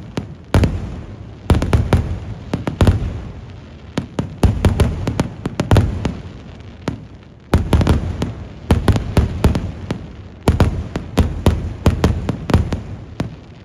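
Kerala temple-festival fireworks (vedikettu): aerial shells and crackers bursting in rapid barrages of sharp bangs, in waves with short lulls between them.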